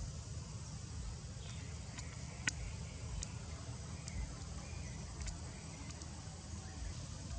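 Forest ambience: a steady high insect drone over a low rumble, with a few faint chirps and one sharp click about two and a half seconds in.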